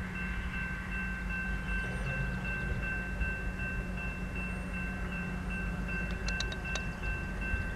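Railroad crossing bell ringing in quick, even, repeated strokes over a low rumble, as the crossing activates and the gate arms lower for an approaching train. A few short, high clicks come about six seconds in.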